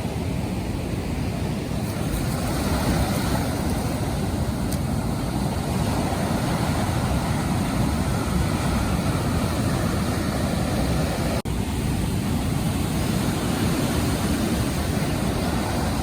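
Steady rush of surf breaking on the beach, with wind noise on the microphone, cut by a brief dropout about eleven seconds in.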